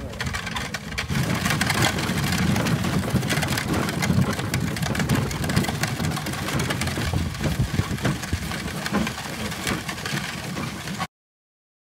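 Horse-drawn four-wheeled carriage rolling along the track: a steady rumble of the wheels with rapid clatter and clicks. It cuts off suddenly near the end.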